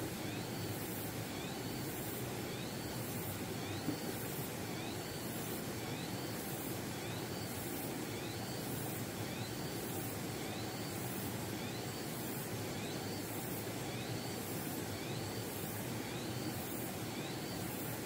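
Steady outdoor background hiss with a short, high, rising chirp repeating about every 0.7 seconds, and one brief tap about four seconds in.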